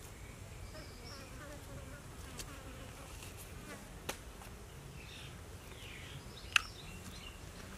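A flying insect buzzing faintly, its pitch wavering up and down as it moves about. A couple of sharp clicks come through, the loudest about two-thirds of the way in.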